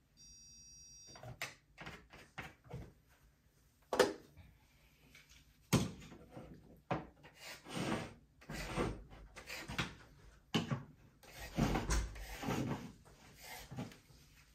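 A short electronic beep, then a run of knocks, clatter and rubbing from objects being handled.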